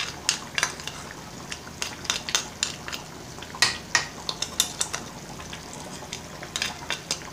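Metal spoon clinking and scraping against a plastic spice tray and a pot as ground coriander is spooned into the sauce and stirred in: irregular sharp clicks, busiest about four seconds in.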